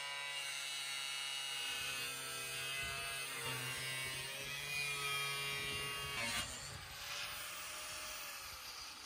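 Angle grinder with a cut-off disc, its motor whining steadily as it cuts through the thin steel wall of an oil drum. About six seconds in the cut stops, and the grinder's pitch falls as it winds down off the drum.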